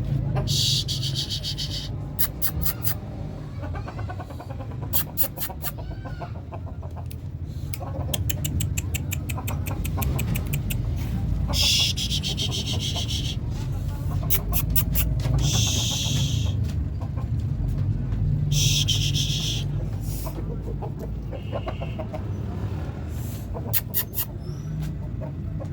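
Aseel roosters fighting: repeated bursts of rapid wing flapping and scuffling, each a second or two long, over a steady low rumble.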